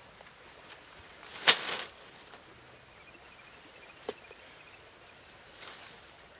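Bamboo poles dropped onto grassy ground about a second and a half in, a brief loud clatter. Then single poles are handled and laid down, with a light knock about four seconds in and a rustle near the end.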